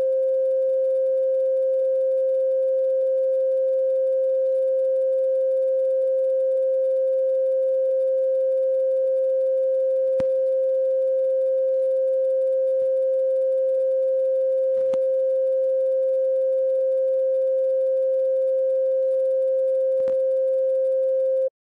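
A single steady mid-pitched pure tone with faint higher overtones, held at an unchanging level and cutting off suddenly near the end. A few faint clicks sound underneath.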